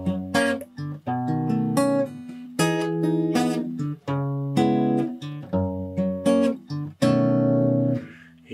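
Acoustic guitar music: a run of plucked and strummed chords, each one ringing out before the next.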